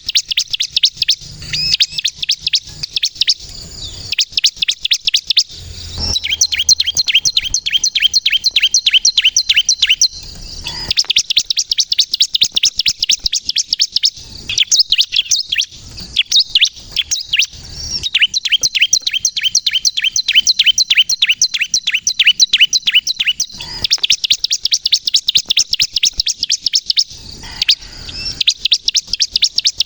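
Bar-winged prinia ('ciblek kristal') singing loud, fast chattering trills of sharp, high notes, in phrases several seconds long with brief pauses between them.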